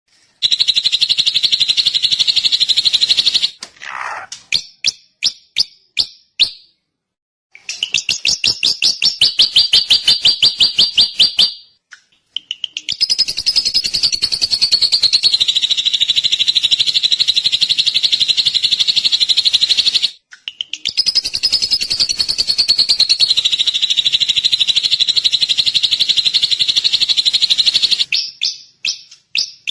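Drongo (srigunting) singing: long runs of rapid, even chattering notes repeated many times a second, broken by short pauses in which slower, separate notes are heard, one of them falling in pitch about four seconds in.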